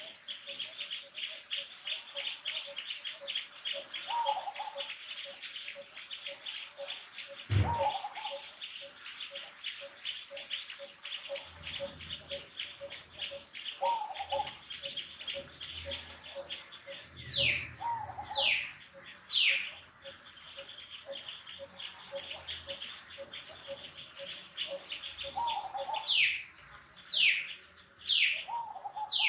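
Wild birds calling: a fast, steady run of high chirps with a repeated lower note beneath it, and in the second half two groups of loud whistles that slide downward. There is a single sharp thump about a quarter of the way in.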